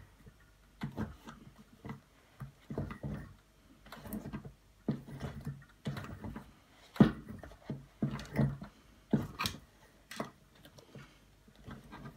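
Flathead screwdriver prying a ball bearing out of the metal hub shaft of an Emmaljunga pram wheel, worked a little at a time around the circle: irregular metal clicks and scrapes with short pauses between.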